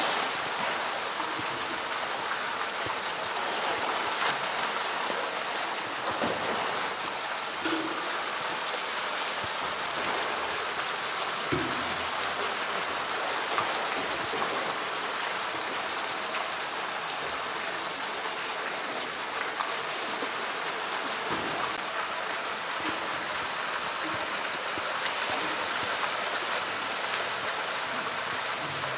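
Steady rush of pool water, with splashing and a few light knocks as a polar bear swims and pushes a floating blue plastic drum about.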